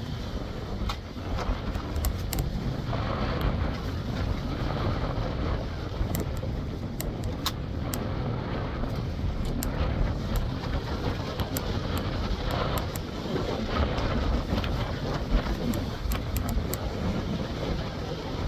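Wind buffeting the microphone in a fluctuating low rumble, over the wash of ocean surf breaking on a rocky shore, with faint small ticks scattered through.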